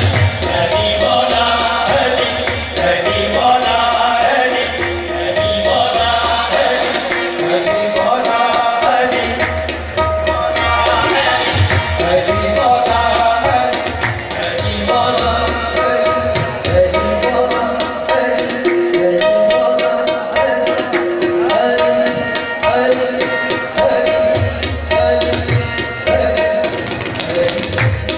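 Live qawwali music driven by a tabla played in a fast, dense rhythm, over sustained harmonium notes.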